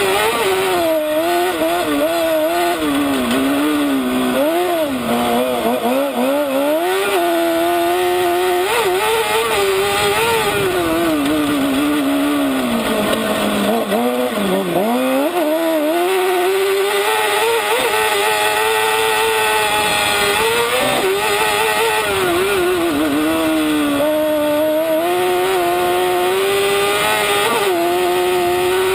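Kart cross buggy's engine running hard at high revs, its pitch rising and falling again and again with throttle and gear changes; about halfway through it falls to its lowest and then climbs back up.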